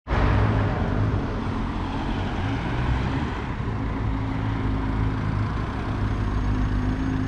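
Street traffic: road vehicles running past on the road, with a steady engine hum, and a car driving past close by near the end.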